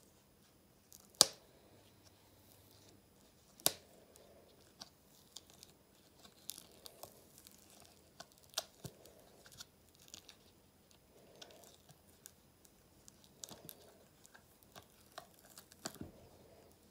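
A silicone mould is flexed and peeled off a cured epoxy resin ashtray. There are two sharp snaps in the first four seconds, then a scatter of small clicks and crackling as the silicone pulls away from the resin.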